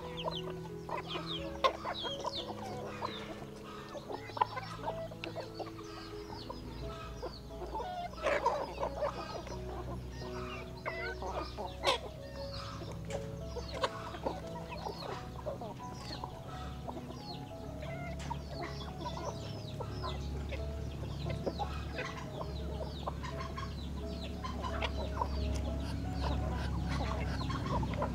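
A flock of chickens clucking and calling, with many short calls overlapping one another throughout.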